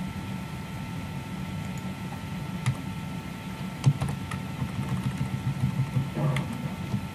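A few scattered computer keyboard keystrokes over a steady background hum.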